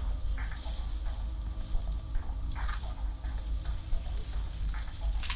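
Insects trilling steadily at a high pitch, with irregular rustling and crackling of leafy branches as an Asian elephant feeds on shrubs, over a low rumble.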